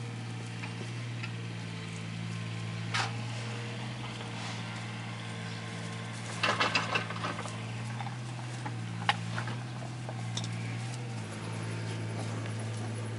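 Steady low hum under scattered short crackles and clicks of straw bedding shifting as young puppies crawl over it, with a quick cluster of crackles about six and a half seconds in.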